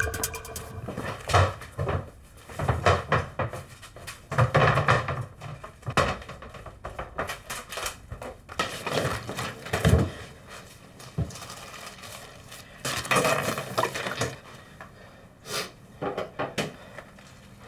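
Irregular clattering and knocking of hard household objects, coming in uneven bursts with short gaps.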